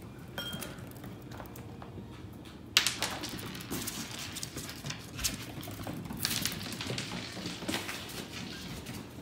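An ice cube hits the tile floor with a sharp clack about three seconds in, then skids and clatters across the tiles in irregular clicks. A Pomeranian puppy's claws patter on the tile as he chases it.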